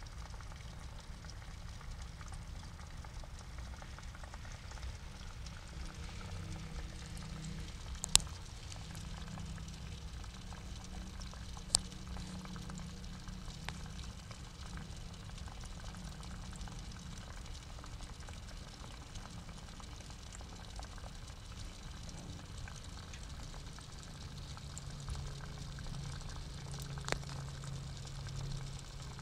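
Pond water bubbling and trickling steadily, under a low steady hum. A few sharp clicks stand out, the loudest about eight seconds in.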